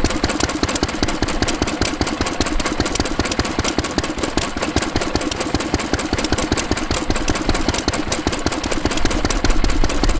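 Crossley hopper-cooled stationary engine running steadily, with a fast, even beat of firing strokes.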